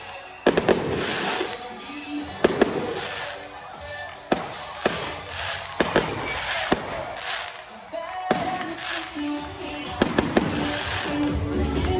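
Fireworks display: a dozen or so sharp bangs of bursting aerial shells at irregular intervals, each trailing off into crackle, with music playing underneath.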